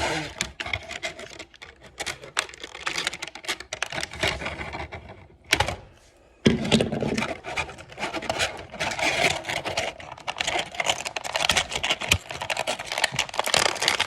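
Rapid crackling and clicking of plastic toy packaging being handled and cut open with scissors, with a brief pause about halfway through.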